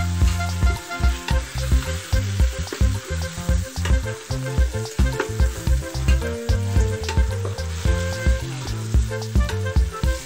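Chicken pieces sizzling as they fry in oil in a stainless steel pot, stirred with a spoon, over background music with a steady beat.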